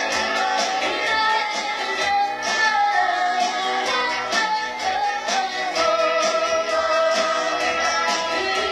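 Live band playing a song with a lead singer singing into a microphone, guitar accompaniment and drums keeping a steady beat.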